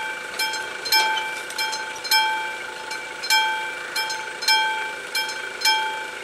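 Classic level-crossing warning bell ringing steadily while the crossing is closed for an approaching train: a bright struck ring a little under twice a second, louder and softer strikes alternating, each ringing on briefly.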